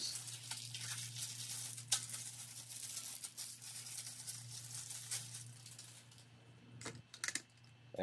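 Faint rustling and many small clicks of hands handling parts, busiest in the first few seconds, with a few sharper ticks near the end, over a low steady hum.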